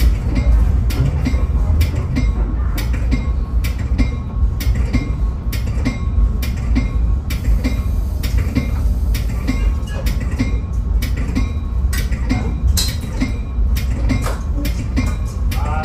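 Caltrain passenger train running, heard from on board: a heavy, steady low rumble with frequent sharp clacks, one or two a second, as the wheels pass over the track.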